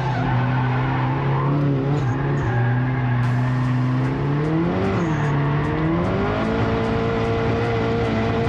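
Mazda Miata drift car's engine heard from inside the cabin, pulling at steady revs. It dips and rises about five seconds in, then climbs to a higher pitch and holds there.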